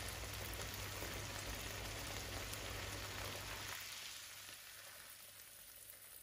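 Eggs in tomato sauce sizzling in a frying pan, a steady faint hiss with a low hum under it, both dropping to a quieter hiss about four seconds in.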